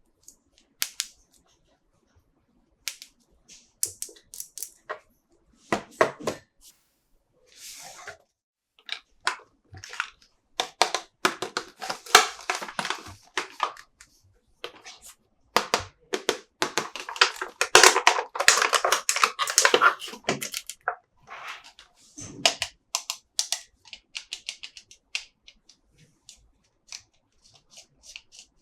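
Toy unboxing by hand: scattered sharp plastic clicks and taps, with a longer stretch of rustling packaging from about a third of the way in to past the middle.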